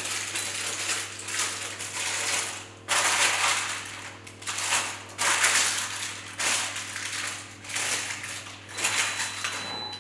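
Damp, crumpled baking paper crinkling and rustling as it is unfolded and pressed into a loaf tin, in a run of rustles one after another.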